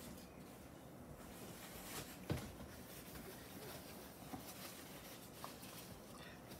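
A hand rubbing and wiping across the surface of a cardboard box to clear off grime, a faint scuffing, with one sharp knock a little over two seconds in and a few light ticks later.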